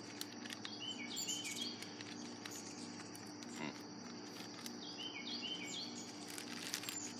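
Summer outdoor ambience: a steady high drone of crickets and insects over the steady low hum of an air-conditioning unit, with a bird calling in short chirping phrases twice. Faint crinkles and clicks of a plastic tobacco pouch being handled.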